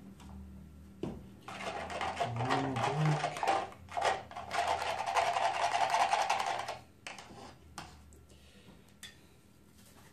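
Black acrylic paint being mixed in its container, a rapid scraping rattle lasting about five seconds that starts about a second and a half in and stops sharply near seven seconds.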